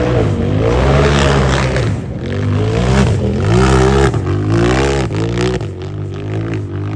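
Racing UTV's engine revving hard, its pitch rising and dropping again and again as the throttle is worked on and off.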